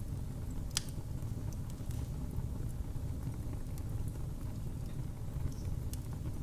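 Wood fire burning in a fireplace: a steady low rumble of flames with scattered sharp crackles and pops, one louder pop about a second in.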